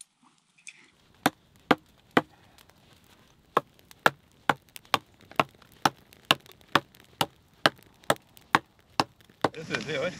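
Sharp knocks repeated very evenly, about two a second, with one short pause early on.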